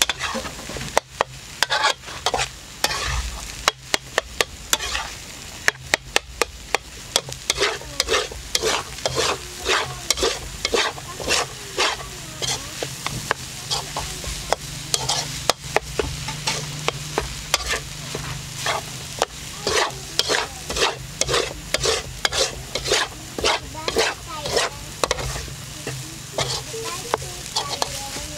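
A metal utensil scraping and clinking against an aluminium wok as beef fried rice is stirred and tossed, with repeated strokes at a quick, uneven pace over the sizzle of the rice frying.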